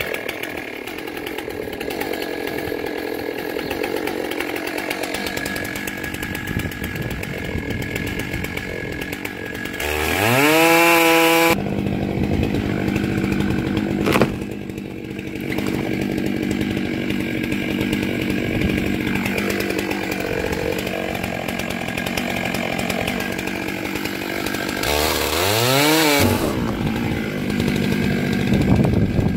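Gas chainsaw cutting through a box elder burl log, the engine running steadily under load. Twice, about ten seconds in and again near the end, it revs up in a rising whine, and there is one sharp knock about fourteen seconds in.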